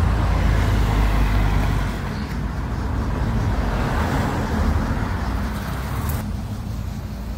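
Motor vehicle traffic: a steady low rumble of engine and road noise that drops away about six seconds in.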